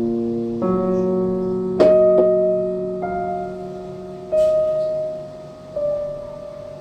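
Slow solo piano background music: single held notes and chords that ring and fade, a new one struck every second or so.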